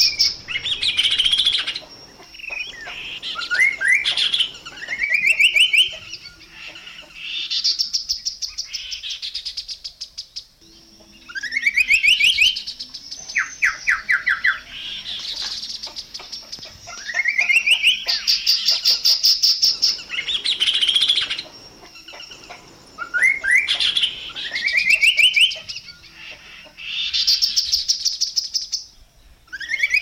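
Chestnut-capped babbler (Timalia pileata) singing: phrase after phrase of quick rising notes running into a fast, higher trill, each phrase a couple of seconds long with short pauses between them.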